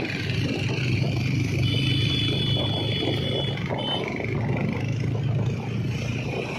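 Motorcycle engine running steadily under way, with wind and road noise over it. A faint high steady tone sounds for about two seconds near the middle.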